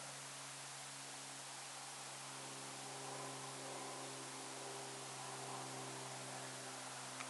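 Quiet room tone: a steady hiss with a low, even hum underneath, and a few faint extra tones joining in about three seconds in.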